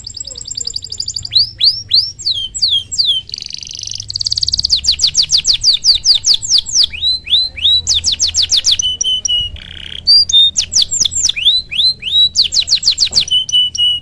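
Domestic canary singing vigorously in full song: a long, fast run of chirps and trills, with rapidly repeated downward-sweeping notes changing from phrase to phrase. The song cuts off abruptly at the end.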